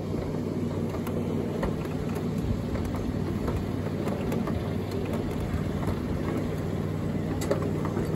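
Ride-on miniature train rolling along its track: a steady low rumble of wheels on rail under a constant low hum, with scattered faint clicks as the wheels run over the rail joints.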